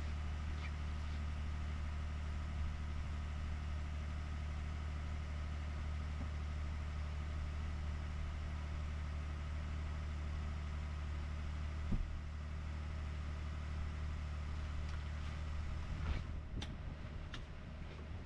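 2021 Ford F-150 PowerBoost's 3.5-litre twin-turbo V6 idling steadily just after a remote cold start at minus 21 °C. A single short knock comes about twelve seconds in, and a few short clicks come near the end.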